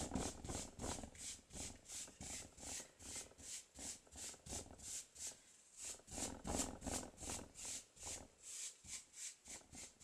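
A thick, stiff paintbrush dry-brushing paint onto canvas drop cloth: quick scrubbing strokes of the bristles on the fabric, about three or four a second.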